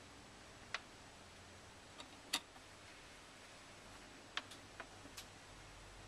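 Light, irregular clicks from a kinetic sculpture's wire-and-motor mechanism as its sheet-music wings move. There are about six clicks spread over several seconds, the loudest a little past two seconds in, over faint hiss.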